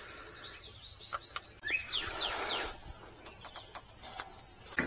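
Small birds chirping: runs of short, high, falling chirps about half a second in and again around two seconds in, with a few light clicks in between.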